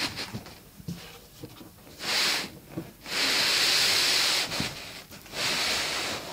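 Large cardboard carton being slid up off an inner cardboard box, cardboard scraping against cardboard in three strokes, the longest about a second and a half.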